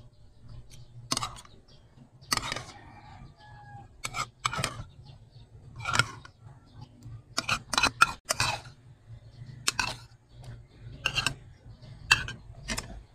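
Mukbang eating sounds: soup slurped off a metal spoon and the spoon clinking and scraping in a ceramic bowl, a dozen or so short sharp sounds with gaps between them.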